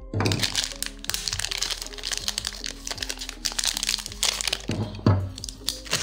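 Clear plastic packaging bag crinkling and crackling as it is cut open with a pocket knife and the knife inside is pulled out. Soft background music plays underneath.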